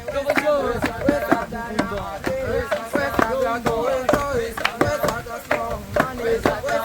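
Several people singing a chant-like work song together, over regular thuds of a wooden pestle pounding coffee beans in a mortar, about two a second.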